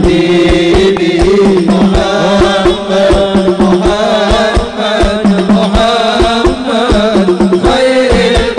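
Islamic sholawat sung by a male lead vocalist in a wavering, ornamented melody, over a steady beat of hadrah hand drums.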